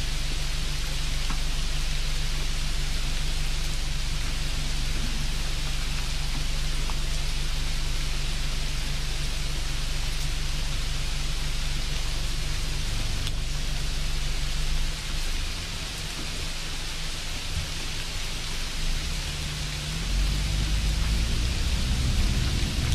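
Steady hiss of background noise with a low hum beneath it. The hum fades about 15 seconds in, and a deeper rumble comes in about 20 seconds in.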